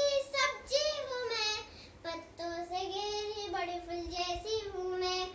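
A young child singing a poem in a high voice, with long held notes that glide between pitches and a short break about two seconds in.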